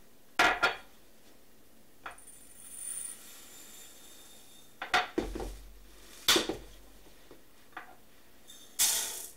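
Dry rice being measured out: a measuring cup and a plastic storage bin clattering, with short rattles and a brief rush of grains near the end. There are four or so separate clatters with quiet between them.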